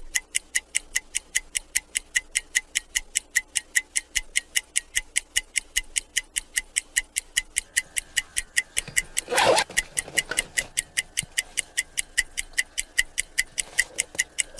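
Background music built on a steady, clock-like ticking, about five sharp high ticks a second. A brief swish cuts across it a little past halfway.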